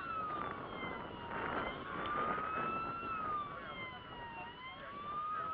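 A model ship's electronic siren wailing, its pitch rising and falling slowly about once every three seconds.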